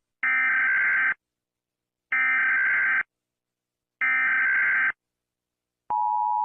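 Emergency Alert System SAME header: three buzzing data-tone bursts of about a second each, two seconds apart. About a second before the end, the steady two-tone EAS attention signal begins.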